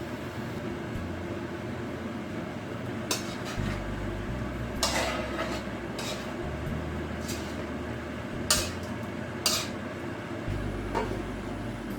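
A utensil clinking against a cooking pan of simmering adobo, about seven sharp knocks at uneven intervals, the loudest about five and eight and a half seconds in. A steady low hum runs underneath.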